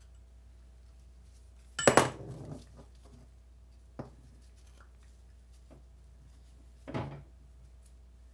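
Steel valves clinking against a cast-iron Mini 1275 A-series cylinder head and the bench as they are pulled out of their guides and set down. There is a loud metallic clatter about two seconds in, a single click at four seconds and a second, shorter clatter near seven seconds.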